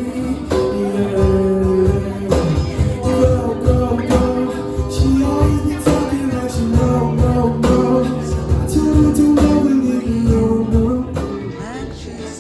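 Background music: an instrumental break of a pop love song with guitar and a steady beat.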